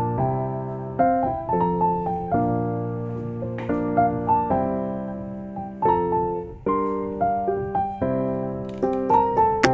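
Background music: a gentle piano tune, one note after another, over a held low bass note.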